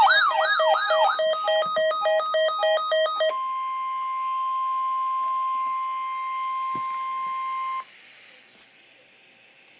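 Electronic weather alarm signal: a wailing siren-like sweep that ends about a second in, then rapid beeping, then a steady single-pitch tone. The steady tone is the NOAA Weather Radio warning alarm tone, sent here as a test. It cuts off abruptly near the end, leaving faint radio hiss.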